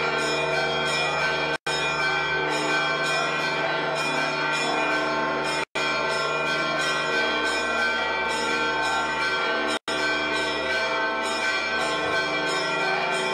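Church bells ringing continuously in quick, overlapping strikes. The audio cuts out completely for a moment about every four seconds.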